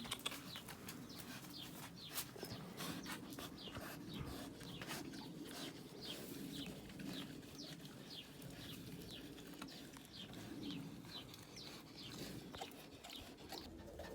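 Faint bird calls: many short, high chirps, each falling in pitch, a few a second, over low calls underneath, with a few clicks near the start.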